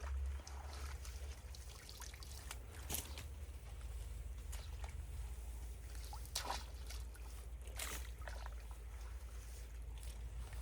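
Water trickling and dripping at a debris-clogged culvert, with a few short splashes, the clearest about three, six and a half and eight seconds in, over a low steady rumble.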